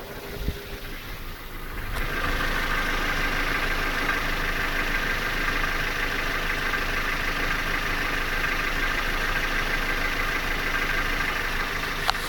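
Car engine idling steadily, getting louder about two seconds in, with a sharp click near the end. The owner calls the noise an engine knock.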